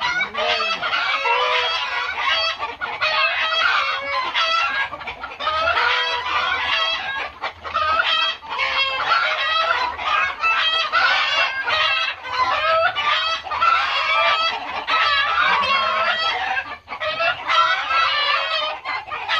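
A flock of Indonesian village chickens (ayam kampung) clucking and calling over one another without a break, with rooster crowing among the calls.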